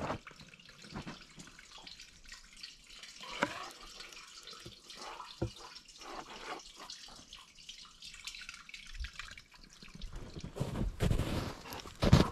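Water dripping and trickling inside a corrugated metal culvert pipe, with scattered sharp drips. Near the end, footsteps crunch through snow.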